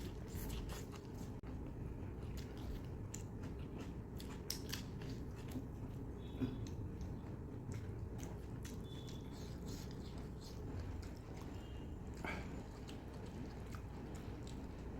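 Close-miked chewing and biting while eating mutton curry with roti: scattered wet mouth clicks and smacks over a steady low hum.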